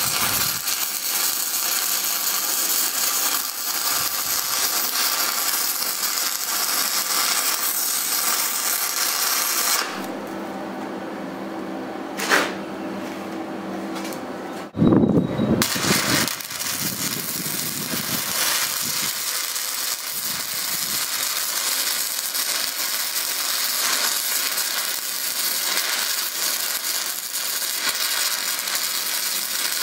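Stick-welding arc crackling and sizzling steadily. About a third of the way in the arc stops for roughly five seconds, leaving a low steady hum and one click. The arc is then struck again with a loud burst and crackles on.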